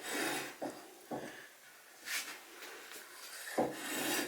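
Faint handling sounds from a knife-sharpening jig: a few soft knocks and rubs as the sharpening bar is set to the angle, with a louder one near the end.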